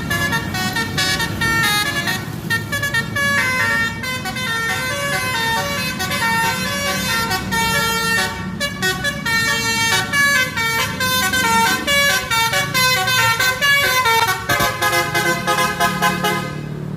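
Bus telolet (basuri) horn playing a fast melody of short notes that step up and down in pitch, over the low rumble of the bus engine; the melody cuts off suddenly near the end.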